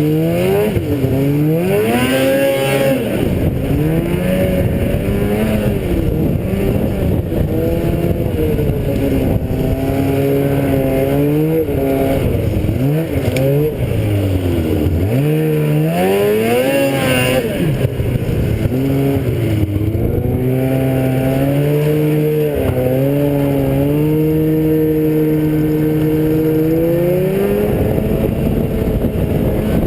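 A small vehicle's engine running while being ridden over rough ground, its pitch rising and falling again and again as the throttle is opened and eased off. It holds a steady speed for a few seconds past the middle, then climbs near the end.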